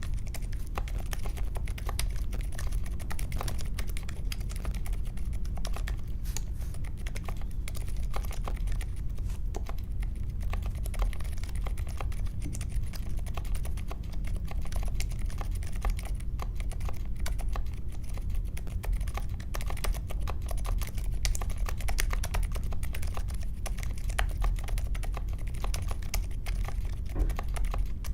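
Mechanical keyboard with unlubed Akko CS Vintage White linear switches, in an aluminium case with foam and tape mods and clipped stabilizers, typed on continuously: a fast, dense run of keystroke clacks.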